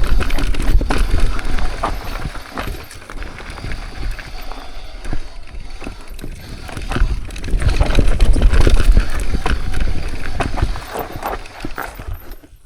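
Mountain bike riding down a rocky trail: tyres and frame clattering over rock, with a heavy low rumble of wind and motion noise on the microphone that swells twice, near the start and again past the middle.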